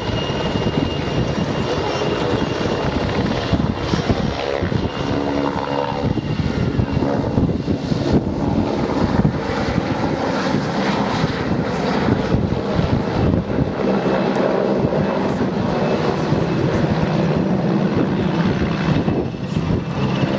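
PZL W-3A Sokol helicopter in flight: the rapid chopping of its main rotor over a steady high whine from its twin turboshaft engines.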